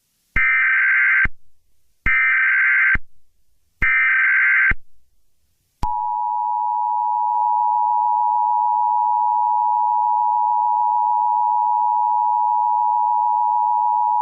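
Emergency Alert System tones: three roughly one-second bursts of the warbling SAME data header, then the steady two-tone attention signal, held for about eight seconds and cut off sharply near the end. It signals that an emergency alert message follows.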